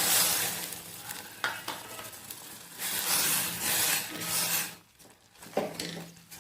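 Semolina being stirred into boiling water in a pot on the stove: a spoon scraping and swishing through the thickening mixture, with the hiss of the hot water. The stirring is loudest at the start and again about three to four seconds in, then turns to a few fainter strokes near the end.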